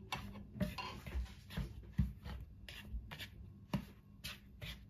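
A spatula stirring dry flour mix in a plastic mixing bowl: repeated soft scraping strokes, about two a second.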